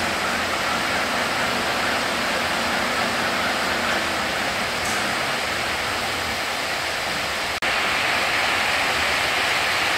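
Steady, even noise of a metalworking machine running, with one very short break about seven and a half seconds in.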